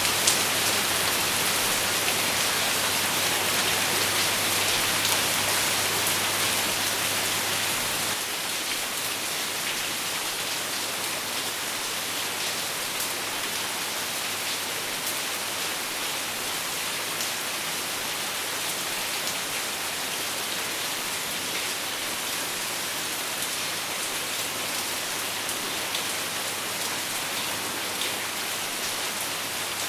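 Steady rain falling, an even hiss with many small drop taps, easing slightly about eight seconds in.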